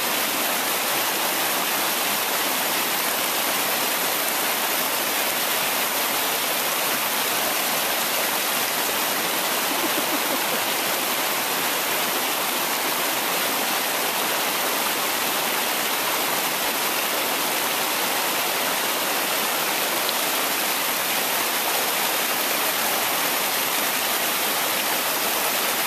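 Creek water rushing steadily over rocks in a small rapid, an even roar of white water.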